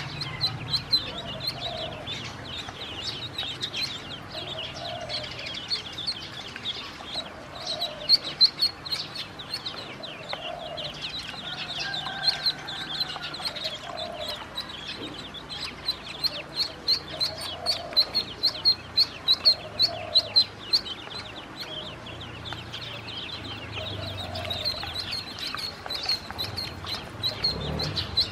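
Ducklings peeping: many short, high peeps in quick succession, with softer lower calls recurring every second or two underneath.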